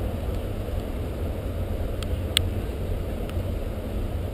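Wind buffeting the camera's microphone, a steady low rumble that rises and falls, with one sharp click a little over two seconds in.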